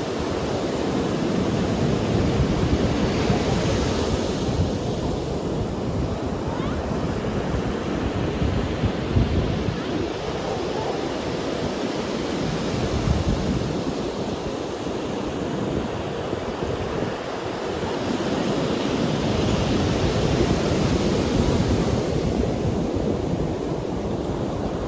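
Sea waves breaking and washing onto a beach: continuous surf noise that swells about four seconds in and again around twenty seconds, with wind rumbling on the microphone.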